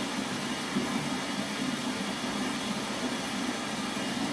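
Bath tap running into a filling bathtub: a steady rush of water.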